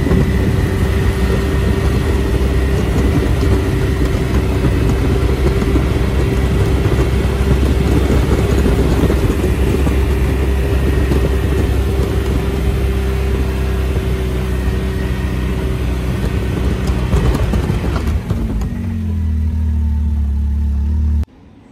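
Can-Am Maverick X3 RC side-by-side's turbocharged three-cylinder engine running steadily under load while its 72-inch poly plow pushes deep snow. About eighteen seconds in, the engine settles to a lower, steady note, then the sound cuts off suddenly.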